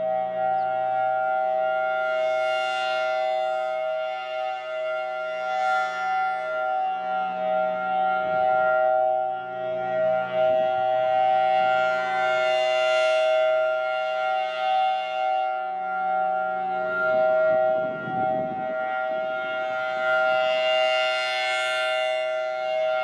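Civil defence siren holding a steady-pitched alert tone, a chord of several notes with no rise or fall in pitch, swelling and fading every few seconds.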